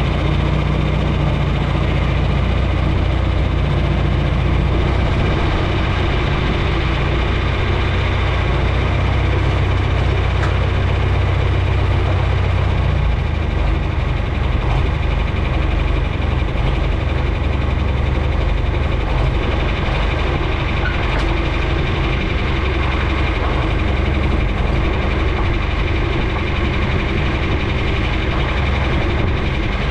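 Engine running steadily at a constant speed, its low drone settling slightly lower about thirteen seconds in.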